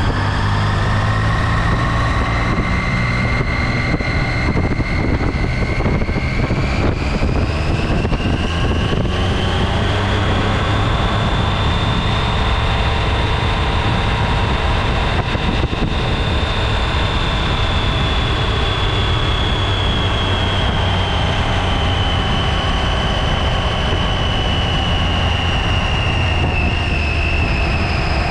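Triumph Tiger XCx three-cylinder motorcycle engine running at road speed under heavy wind rush on the bike-mounted microphone. A whine climbs slowly in pitch over the first ten seconds, holds, then eases down near the end.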